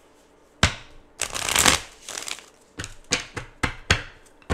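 A deck of tarot cards shuffled by hand: a sharp tap, a brief rushing riffle of cards, then a run of quick sharp taps as the cards are knocked together.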